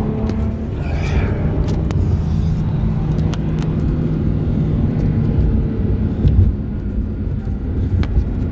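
Nissan 370Z's 3.7-litre V6 running under way with road noise, a steady low rumble and drone.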